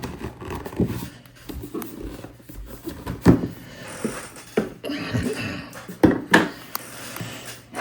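Cardboard product packaging being handled and opened: irregular light knocks and rustles, with sharper knocks about a second in, around three seconds in and twice near six seconds.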